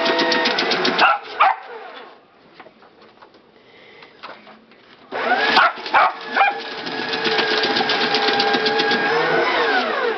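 Aurora paper shredder cutting paper, its motor running with a rapid fine rattle of the blades. It stops about a second in and starts again about five seconds in as more paper is fed, then winds down with a falling pitch near the end.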